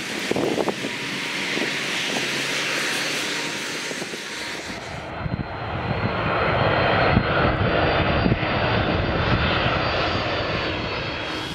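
Airbus A300-600ST Beluga's twin turbofan jet engines on low final approach, a loud steady rumble and whine. It grows louder and deeper from about halfway through as the aircraft comes in close.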